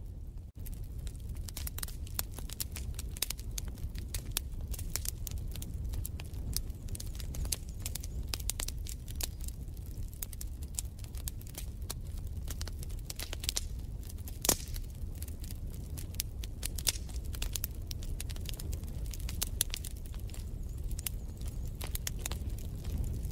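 Wood fire crackling and popping in a fireplace, many irregular small pops over a steady low rumble, with one louder pop about midway.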